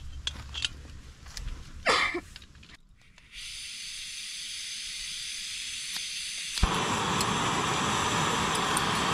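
Canister gas stove being lit: gas hisses from the opened valve about three seconds in, then a sharp click about halfway through and the burner catches, burning with a louder, steady rush.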